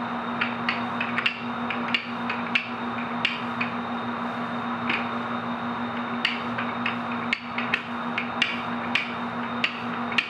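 Stuffed naan dough being flattened by hand and rolled out with a wooden rolling pin on a stainless steel worktop, giving frequent irregular sharp knocks and taps on the metal. A steady hum runs underneath.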